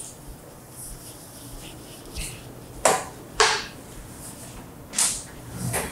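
Short handling knocks and rustles while the home theatre's cables are plugged in: two close together around the middle and two more near the end.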